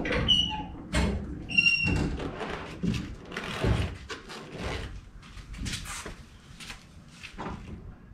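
A series of dull thumps and knocks as the jacked-up rear wheel and tyre are handled in the wheel arch. Two short squeaks come in the first two seconds, and the knocks thin out to lighter taps later.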